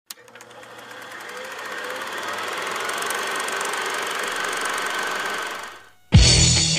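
A rapid mechanical clatter, used as an intro sound effect, swells up over a couple of seconds, holds, and fades out. About six seconds in, a loud hit starts rock music.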